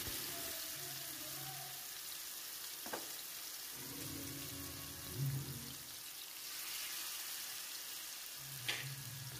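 Masala-marinated seer fish (vanjaram) pieces shallow-frying in oil in a nonstick pan, a faint, steady sizzle. Two short clicks come about three seconds in and again near the end.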